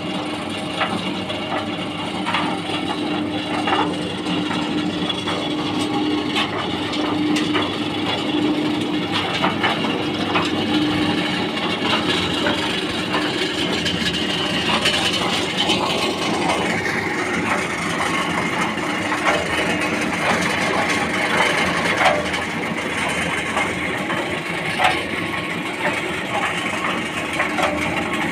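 Electric-motor concrete mixer running: a steady motor hum with continual clatter and knocking from the turning machine.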